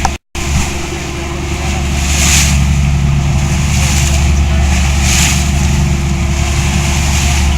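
Boat engine running steadily with a low, even hum, and a hiss of water washing past about every three seconds. The sound drops out for a moment just after the start.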